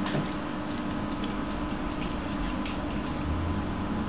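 Tram running along its tracks, heard from inside the car: a steady hum and low rumble with a few faint clicks, the rumble growing a little near the end.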